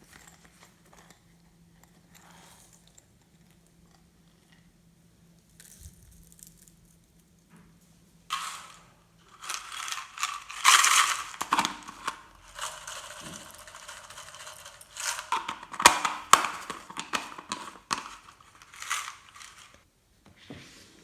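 Slime being squeezed and kneaded by hand, giving off dense crackling clicks and pops from trapped air. It is faint at first and becomes loud and busy about eight seconds in.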